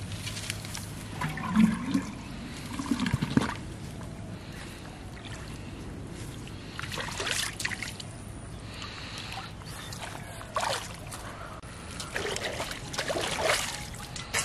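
Shallow pond water trickling and splashing in irregular bursts as a clay pot is moved under the water and hands grope among the reeds.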